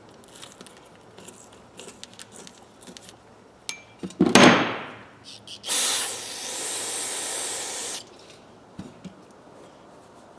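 Light clicks of metal sockets being handled, then a loud short burst about four seconds in, followed by a steady hiss from an aerosol spray can lasting about two seconds and cutting off suddenly.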